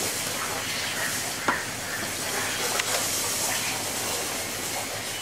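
Water running and splashing with a steady hiss, as water is poured over a wet baby elephant. A single sharp knock comes about a second and a half in.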